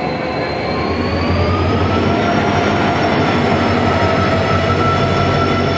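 WDP4B diesel-electric locomotive running as it moves along the platform, a heavy low engine hum under a whine that rises in pitch about a second in and then holds steady.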